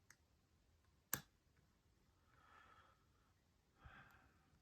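Lock picks working an Abus 83/45 padlock: a faint click, then a sharper click about a second in, amid near silence, with two soft breaths later on.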